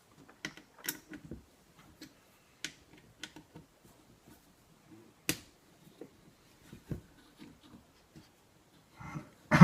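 Scattered light clicks and taps of a hand tool working on the shotgun stock's screw. A louder knock comes right at the end.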